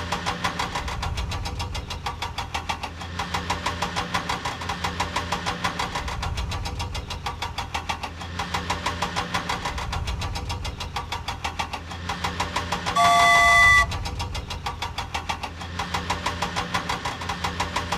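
Cartoon toy-vehicle engine sound effect chugging steadily, pulsing about five times a second over a low rumble, with one short horn honk about two-thirds of the way through.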